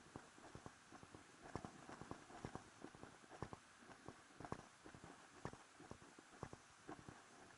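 Faint footsteps of a hiker walking on a dirt and stone footpath, a steady walking rhythm of about two steps a second.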